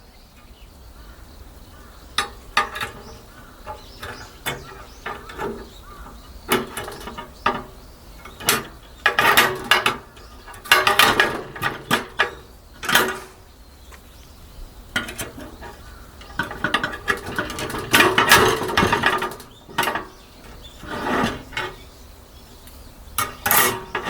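Irregular clicks, clatters and short scraping or rustling noises of things being handled, with quiet gaps between.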